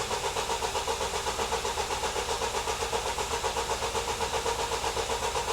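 Starter motor cranking the Vauxhall Vivaro's diesel engine in an even rhythm of about five compressions a second, without the engine firing. It fails to start because the immobiliser is not reading the key, not for lack of fuel.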